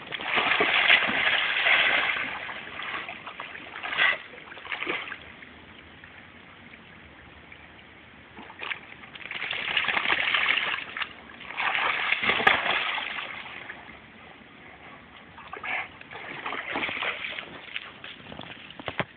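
Labrador retriever splashing and churning in river water, in several bouts of splashing with quieter spells between.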